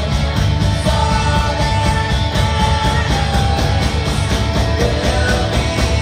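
Three-piece rock band playing live: electric guitar, bass guitar and drum kit, with singing, at a loud, steady level and a regular beat. Recorded on a phone from among the audience.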